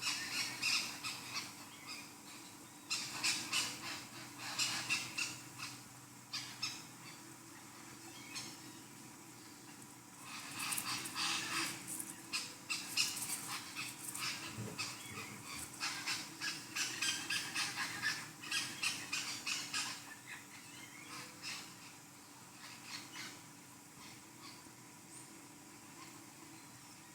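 Birds chirping and calling in busy bursts of a few seconds each, with quieter gaps between, thinning out over the last few seconds, over a faint steady hum.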